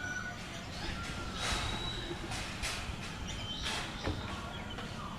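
Birds calling: scattered short whistled notes, with four short, harsh noisy calls in the middle.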